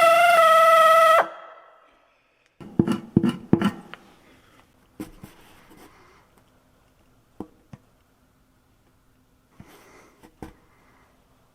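Rotary tire buffer whining steadily as it buffs the inner liner around a puncture, shutting off about a second in and spinning down. A quick cluster of knocks follows, then a few scattered clicks.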